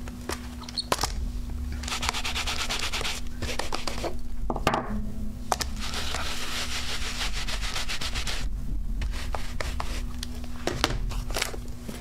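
Rubber stamps on a clear acrylic block being scrubbed on a Stampin' Scrub stamp-cleaning pad to clean off the ink: a dry, hissing rubbing in two long spells, with scattered clicks and taps of the block and the hinged case.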